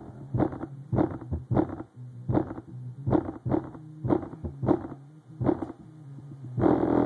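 Bass-heavy music played loud through a custom 15-inch subwoofer with a Sundown Audio cone, heard as a buzzy, distorted bass. Here it is a sparser passage of rhythmic beats, two or three a second, over a held low note, and the dense droning bass comes back just before the end.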